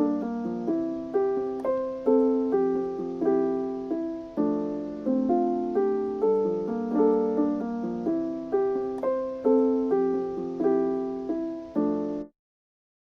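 Background piano music, gentle repeated chords of struck notes that fade between strokes, about two a second; it stops abruptly near the end.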